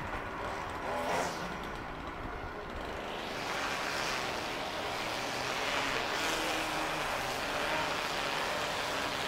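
A train that has just passed fades away over the first couple of seconds. After that comes a steady rushing road noise from the cars waiting at the level crossing.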